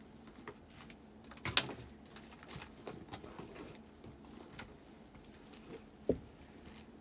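Rummaging through a bag: soft rustling and small handling clicks, with a sharp click about a second and a half in and a single knock about six seconds in.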